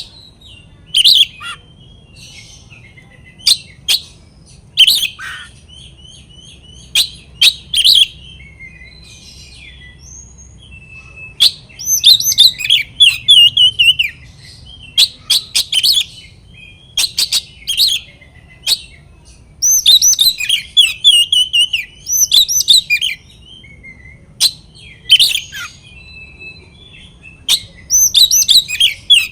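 Oriental magpie-robin (kacer) in loud territorial song: repeated bursts of varied whistles and quick falling, rattling notes, with single sharp calls between the bursts.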